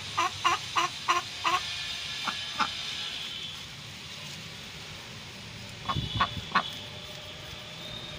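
Domestic ducks quacking in a fast run of calls, about three a second, that stops about a second and a half in. A few scattered calls follow, with a short cluster of them about six seconds in.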